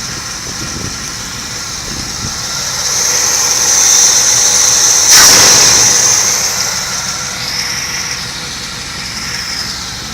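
Chevrolet LT1 V8 engine running, its sound swelling about three seconds in to a sharper rev about five seconds in, then settling back toward idle.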